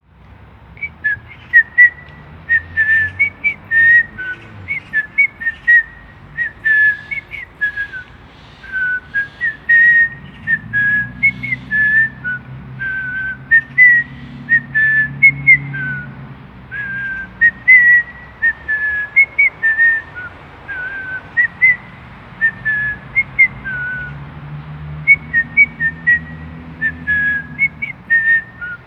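A person whistling a melody of many short, quick notes that hop up and down in pitch, under a railway bridge with resonant acoustics.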